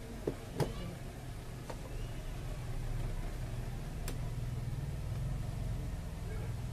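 A few sharp clicks and taps from a disassembled smartphone and its parts being handled, two louder ones in quick succession near the start, over a steady low hum.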